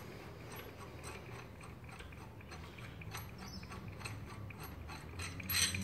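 Light metallic ticks and clicks, a few a second, as the hydraulic puller's threaded shaft is unscrewed by hand from the LS engine's crankshaft snout, with a louder clatter of metal parts near the end.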